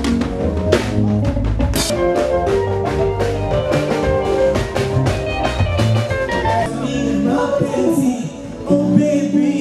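Live band sound check: drum kit, guitar and bass playing with a male singer. Steady drum hits for most of the passage thin out near the end, with a brief drop just before the band comes back in.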